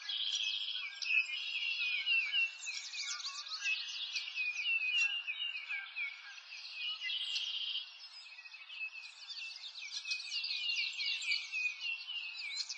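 Many small birds chirping and singing at once, a dense chorus of quick high notes that thins briefly about eight seconds in.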